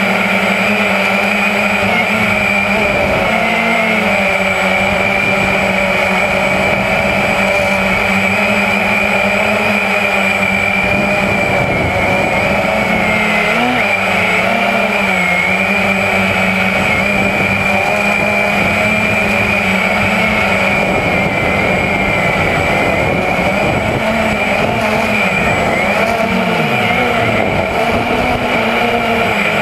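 Walkera QR X350 quadcopter's electric motors and propellers heard from its onboard camera: a loud, steady whine whose pitch wavers, dipping and recovering briefly around the middle and again near the end as the drone manoeuvres.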